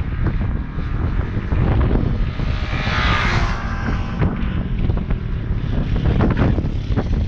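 Small motorcycles running around a cone course, their engines heard under heavy wind rumble on the microphone. One engine note swells and fades about three seconds in.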